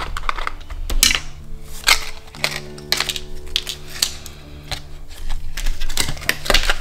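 Small plastic bags of model-kit parts and screws handled and set down on a cutting mat, a scatter of sharp clicks and taps. A steady background music bed runs underneath.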